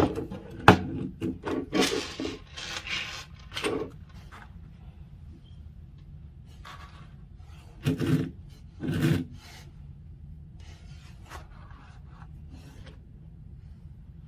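Cardboard doorbell packaging being handled: boxes rubbing and scraping as they are slid and opened, with one sharp tap about a second in. After that come two short scrapes about eight and nine seconds in.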